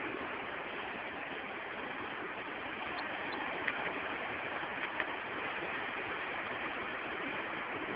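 Steady, even rush of sea surf washing onto the beach, with two brief faint ticks a little past the middle.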